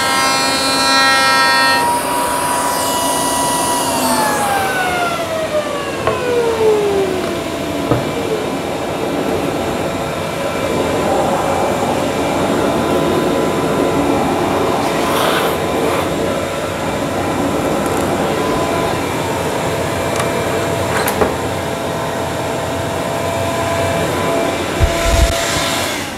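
Table-mounted router spinning a chamfer bit at full speed through a cut. It is then switched off and its pitch slides down over a few seconds as it winds down. A steady machine drone carries on underneath, with a few small clicks, until near the end.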